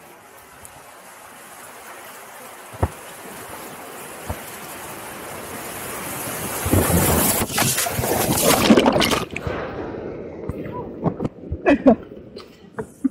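Whitewater rapid rushing, its roar growing steadily as an inflatable packraft canoe paddles into it. About seven seconds in the boat ploughs through the big standing waves with a loud crashing of water for a few seconds. After that comes a broken run of splashes and spray against the boat.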